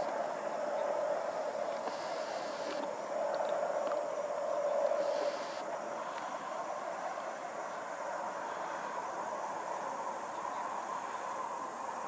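Steady outdoor chorus of insects over a grassy field, a dense even drone with a faint high steady tone; a lower part of the drone fades out about halfway through.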